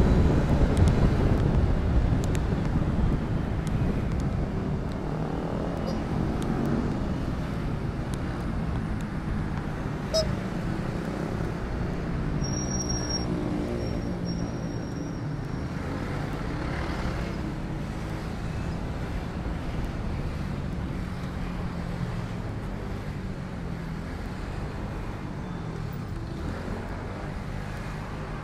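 Engine and road noise from a moving vehicle in heavy traffic. Wind on the microphone is loudest at the start and fades as the vehicle slows into the queue. A brief high beeping sounds about halfway through.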